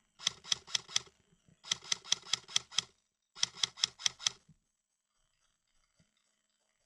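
Airsoft gun firing three short bursts of rapid shots, about five sharp cracks a second, each burst lasting about a second.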